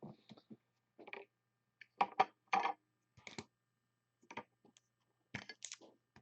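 Trading cards in hard plastic cases being handled and put back: a string of short, irregular clicks and clatters, busiest about two seconds in and again near the end.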